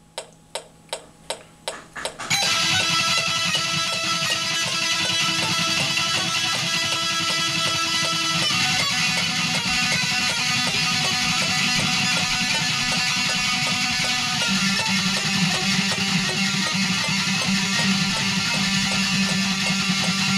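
Six evenly spaced count-in clicks at 160 bpm, then from about two seconds in a Jackson electric guitar playing fast sixteenth-note lines at 160 bpm, loud and continuous.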